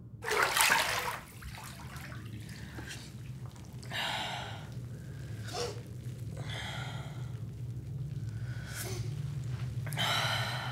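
A woman comes up out of bathwater with a splash and a sharp gasp, then breathes hard: four long breaths about two seconds apart, over a low steady hum.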